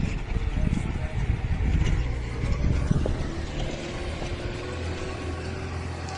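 A heavy machine's engine running: an uneven low rumble that settles into a steady low hum about two-thirds of the way through, with a faint rising whine above it.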